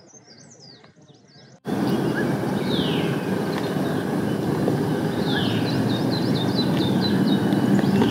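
Wild birds chirping: repeated quick falling calls and a descending trill. About two seconds in, a loud steady rushing noise comes in abruptly and carries on under the birds.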